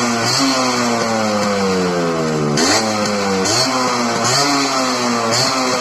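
Yamaha RX 100's single-cylinder two-stroke engine being revved in about five throttle blips. Each time the pitch jumps up quickly, then sinks slowly as the revs fall back.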